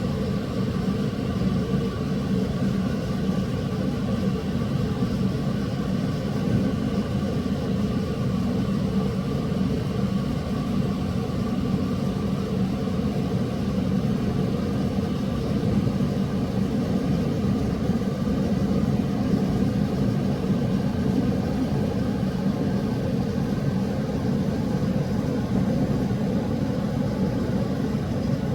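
A steady low rumble with a faint hum, unchanging throughout.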